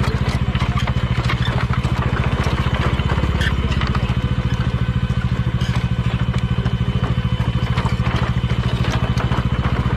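Single-cylinder motorcycle engine running steadily at low revs, with an even, rapid exhaust pulse.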